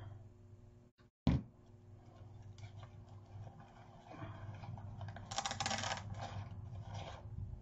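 Boxwood sprigs and deco mesh being handled as stems are pushed into a floral block behind a bow: crinkling and rustling, loudest a little past the middle, after a single sharp click about a second in, over a faint low hum.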